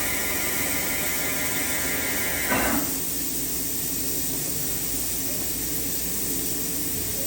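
Okuma MA-12500H horizontal machining center running, a steady hum and hiss with a high whine over it; about two and a half seconds in, a short burst of noise sounds and the whine cuts off, leaving the steady hum.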